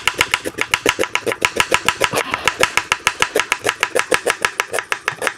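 Kitchen knife slicing an onion on a wooden chopping board: a rapid, even run of knife taps on the board, about eight a second.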